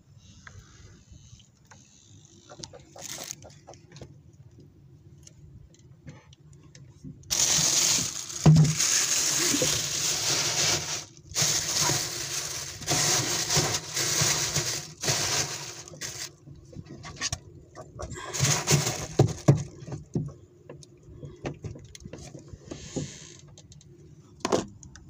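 Plastic bag crinkling and rustling in loud stretches as it is pulled over a styrofoam cooler box, with quieter gaps in between and a single sharp click near the end.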